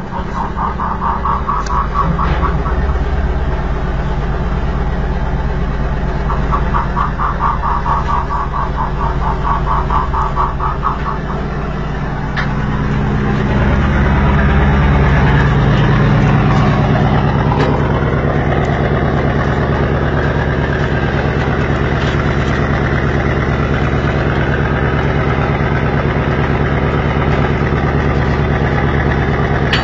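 Fishing boat's engine running steadily; about thirteen seconds in it grows louder and heavier and then holds steady. A fast, high pulsing sound comes twice over the engine in the first eleven seconds.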